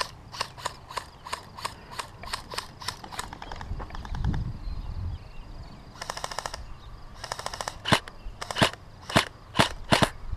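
Airsoft electric guns firing: a steady string of single shots, about three a second, then two short rapid full-auto bursts about six and seven seconds in, and a few louder, sharper single cracks near the end. A low rumble comes about four seconds in.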